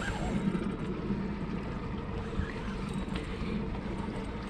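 Outboard motor idling steadily under a small boat, with wind and water noise around it.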